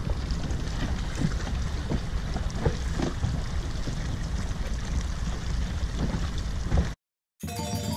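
Wind noise on the microphone and water splashing against an inflatable dinghy under way. It cuts off suddenly about seven seconds in, and music with bell-like notes starts just before the end.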